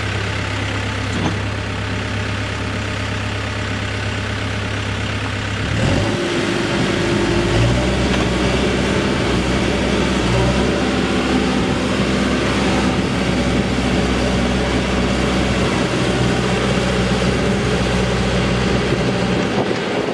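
Case 580N loader backhoe's diesel engine idling steadily. About six seconds in it gets louder and changes pitch as the engine speeds up.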